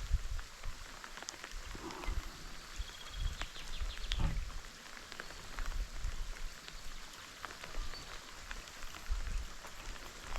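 Light rain falling, with many separate drops ticking at random, under irregular low thumps.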